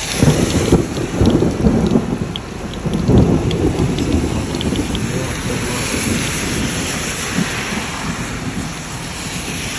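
Heavy rain falling on the car and the wet road, a steady hiss with scattered drop ticks. A low rumble surges several times through the first four seconds, the loudest part, then the rain goes on alone.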